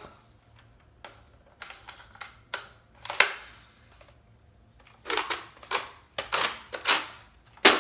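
Plastic clicks and knocks from a Nerf Rival Apollo blaster and its 7-round magazine being handled, a dozen or so separate sharp clicks with pauses between them. The loudest comes about three seconds in, and another just before the end.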